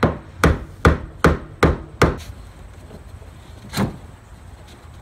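Sharp taps on a screwdriver set against the fuel pump's locking ring in a 1996 Nissan 240SX (S14) tank, knocking the ring round to loosen it so the pump can be lifted out. Seven quick taps at about two and a half a second, then one more a little later.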